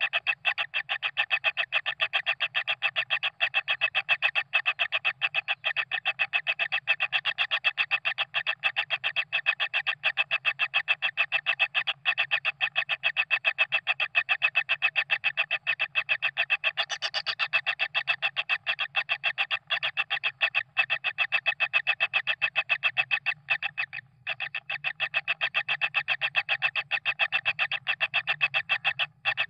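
Kingfisher chick's begging call: a rapid, even series of chirps, about four or five a second, with a brief gap near the end.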